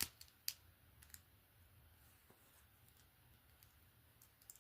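Near silence broken by a few faint, sharp plastic clicks of LEGO bricks being handled: several in the first second or so and a couple more near the end.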